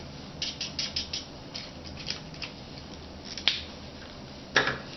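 Light plastic clicks and taps of gloved hands handling a small sample tube and a pocket digital scale: a scattering of soft ticks, a sharp click about three and a half seconds in, and a louder click near the end.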